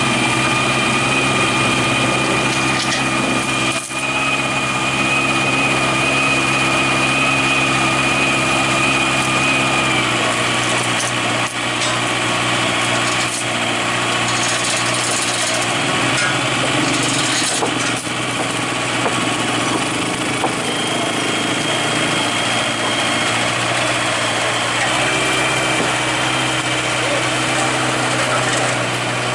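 Diesel engines of heavy equipment running steadily: a Sakai SW500 tandem road roller and a Kobelco hydraulic excavator. A high whine over the engine note stops about ten seconds in, and the engine sound changes there.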